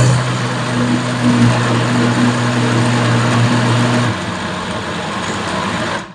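Countertop blender motor running loudly as it blends fruit, including pineapple. A steady low hum in its sound drops away about four seconds in, and the blender is switched off just before the end, the noise cutting off abruptly.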